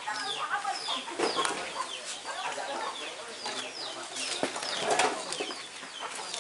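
Many birds chirping, a dense run of short falling chirps, with a few sharp knocks in between.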